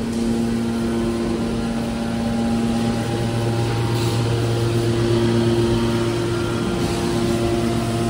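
Hydraulic metal baler's power unit running: electric motors driving the hydraulic pumps give a steady hum with several tones. The pitch mix shifts about three seconds in, as the pump load changes.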